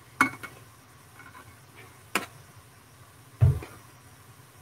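Metal tongs clicking and tapping against a metal baking sheet while turning pieces of baked tofu: a few separate sharp clicks, the one about three and a half seconds in with a dull knock.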